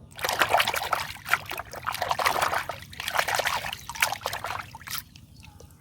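Water splashing and pouring over muddy toys as they are rinsed clean, in uneven gushes; it stops about five seconds in.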